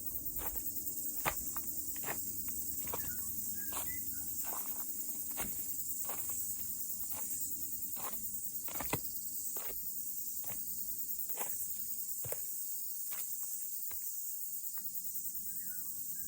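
Cicadas buzzing in a steady high chorus, with footsteps walking at about two steps a second.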